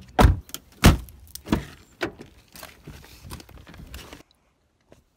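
A car door being opened and shut, with two heavy thumps in the first second, then smaller knocks, clicks and rustling as someone settles into the driver's seat, all stopping about four seconds in.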